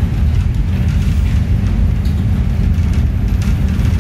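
Steady low rumble of a passenger train running along the track, heard from inside the carriage.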